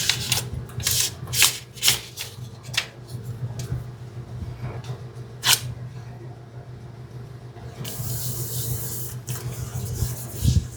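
Phone packaging being handled: sharp crackles and clicks for the first couple of seconds and once again about five and a half seconds in, then about a second and a half of continuous rustling near the end. A steady low hum runs underneath.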